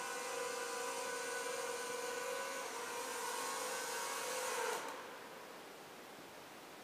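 Zerotech Dobby mini quadcopter's motors and propellers whining steadily in a hover. The whine stops abruptly about five seconds in, leaving only faint hiss.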